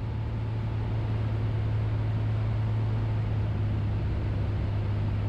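Piper Cherokee Six's six-cylinder Lycoming engine and propeller droning steadily, heard from inside the cabin during a go-around, growing a little louder over the first second.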